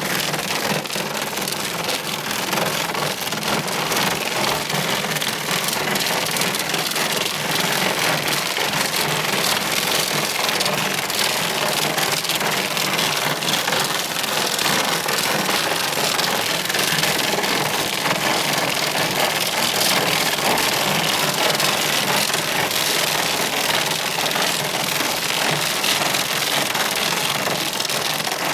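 Hail and heavy rain falling, a loud, steady, dense clatter of countless small impacts.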